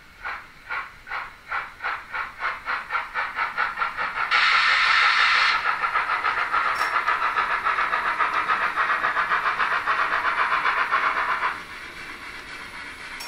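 Sound decoder of a Roco H0 model of a DB class 86 steam locomotive playing steam exhaust chuffs that speed up steadily as the model pulls away, with a loud burst of hiss about four seconds in. The chuffing then runs fast and even, and near the end drops to a quieter level as the coasting sound (function F8, 'Leerlauf') takes over.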